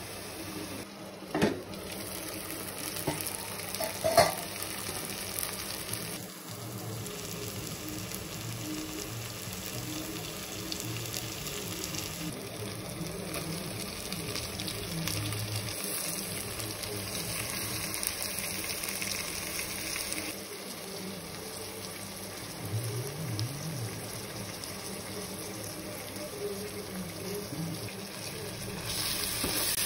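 Onion and tomato masala frying in oil in a pot, a steady sizzle, with two sharp knocks in the first few seconds.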